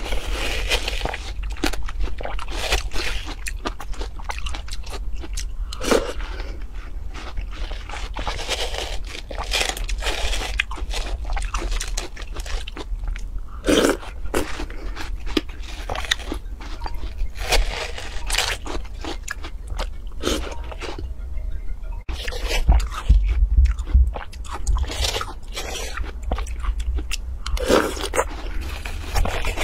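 Wet crunching and chewing of watermelon flesh, with a metal spoon scraping and scooping in the half-melon's rind, in irregular bursts.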